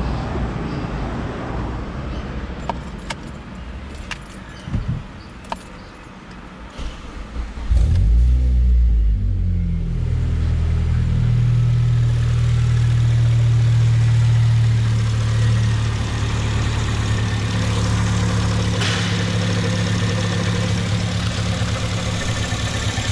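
A few light clicks, then the Honda Civic Si's K20 four-cylinder engine starts about eight seconds in and settles into a steady idle. The idle carries the accessory-belt noise that a new tensioner has not cured, which the owner puts down to play in the air-conditioning compressor.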